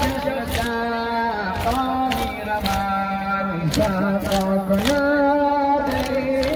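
A Muharram mourning lament (noha) chanted in long held notes, with sharp beats about once a second.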